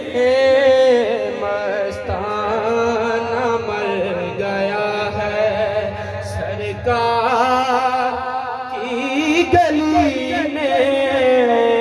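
Men's voices singing a naat, the unaccompanied Urdu devotional song, in long drawn-out notes whose pitch bends and wavers, with no clear words. A new phrase starts about two-thirds of the way through.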